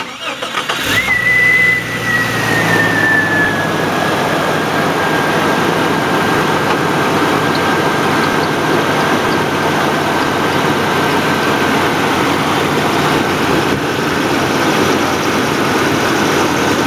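1995 Jeep Cherokee engine cold-started: the starter cranks briefly, the engine catches about a second in and revs up, then settles into a steady idle. As the revs settle, a high whine drops in pitch and holds.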